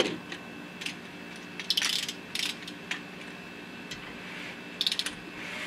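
Hand ratchet wrench clicking in a few short runs as the Chevy 350's crankshaft is turned over by hand to check that it rotates with the new pistons and rings fitted, and it is getting heavier to turn.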